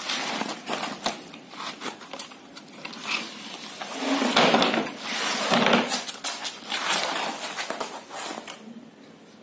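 Painted canvas being ripped and pulled off wooden stretcher frames by hand: crackling tearing and rough handling, loudest between about four and seven seconds in.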